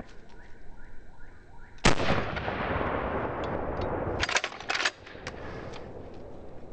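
A single pump-action shotgun shot with a long rolling echo. About two and a half seconds later the slide is racked back and forward with one hand: two quick metallic clacks.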